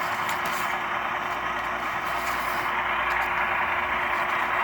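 Sound decoder of a ScaleTrains model GE Tier 4 GEVO locomotive playing its steady diesel engine sound through the model's small speaker.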